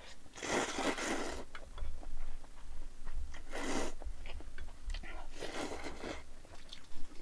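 Glass noodles (dangmyeon) being slurped from chopsticks, three long slurps with chewing and small wet clicks in between.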